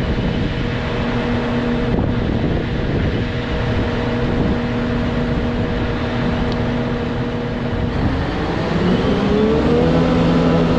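Self-propelled forage harvester running steadily as it chops maize, with wind noise on the microphone. About eight seconds in, another engine revs up: its note rises over about a second, then holds at a higher pitch and slightly louder.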